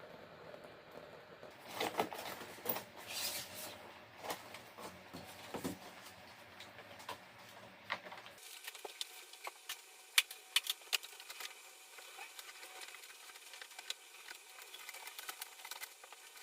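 Irregular light clicks, taps and knocks of small objects being handled. About halfway through, the low background hum drops out abruptly.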